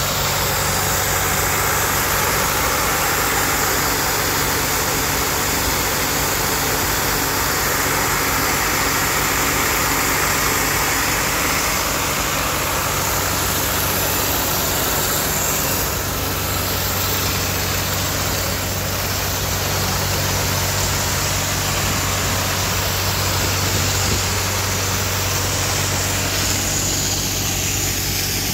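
Trailer-mounted diesel engine-driven flood pumps running together, a loud, steady engine drone as they pump floodwater. The sound eases a little near the end.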